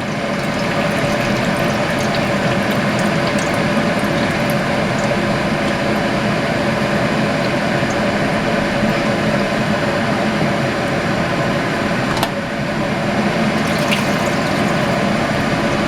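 Juice from a jar of home-canned rabbit being poured into a cooking pot: a steady liquid trickling and splashing, with a brief knock about twelve seconds in.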